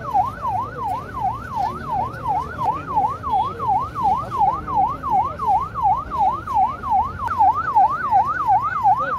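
Ambulance siren on a fast up-and-down yelp, about three sweeps a second, running steadily and a little louder near the end.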